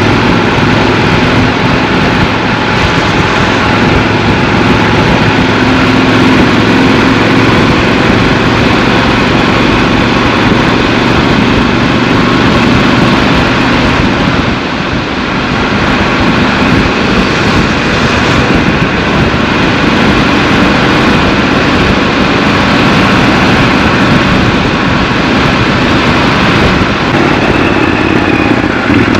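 Triumph Scrambler 1200 XC's 1200 cc parallel-twin engine running steadily while the bike is ridden. It eases off briefly about halfway through.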